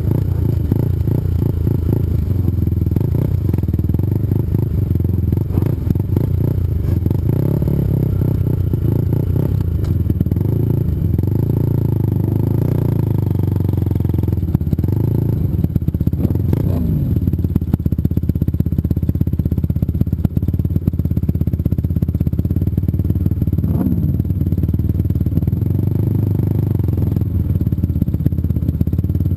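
The single-cylinder four-stroke engine of a 2004 Honda TRX450R quad, heard close up, idling with a rapid, steady pulse and mechanical clatter. Brief revs rise in pitch about halfway through and again later.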